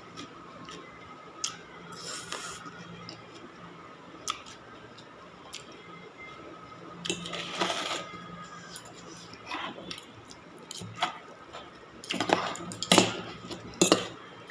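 A metal fork and spoon clink and scrape against a stainless steel bowl of instant noodles, with short bursts of noodle slurping. The loudest clatter comes near the end.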